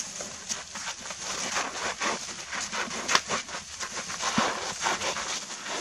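Two young bull elephants sparring: an irregular run of scuffing, scraping and rustling as they shove each other on dirt and dry grass, with a few sharper knocks, the loudest a little after three seconds in.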